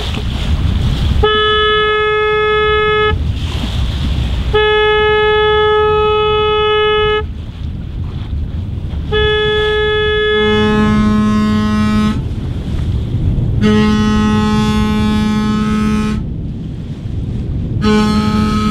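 Boat horn sounding three long blasts, then a second, deeper horn answering with three long blasts of its own, the last starting near the end. Two boats are greeting each other. Low wind rumble on the microphone underneath.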